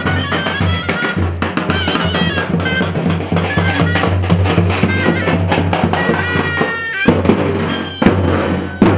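Turkish folk music from davul bass drums beaten in a fast, dense rhythm under a high, shrill reed-pipe melody.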